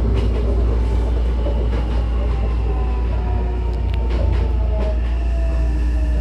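Hankyu 9000-series electric train heard from inside the car as it slows into the station: a steady low rumble with the traction motors' whine gliding slowly down in pitch under braking, and a few light clicks from the wheels.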